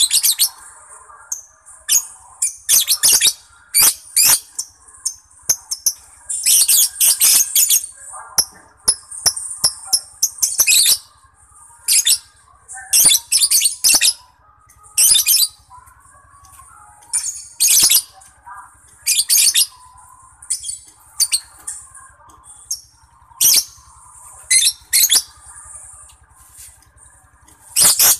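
Lovebird singing: loud, shrill, high-pitched chattering in bursts, some over a second long, coming every few seconds over a softer, continuous twittering.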